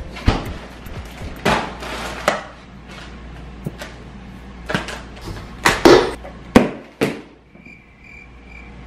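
A run of sudden sharp hits and whooshes, the loudest cluster about six seconds in. Then, from about seven and a half seconds, the sound drops off to a chirping cricket sound effect, a high chirp repeating evenly about twice a second.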